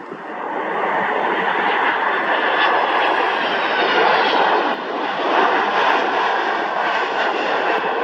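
Jet engines of a Boeing 767 cargo plane, a loud steady rush with faint whining tones, swelling over the first second and staying loud as the plane lands and rolls down the runway.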